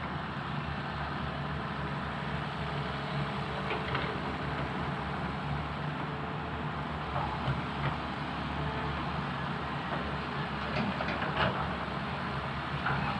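Cat excavator's diesel engine running steadily while digging, with a few short knocks and clanks from the working machine, the loudest about eleven seconds in.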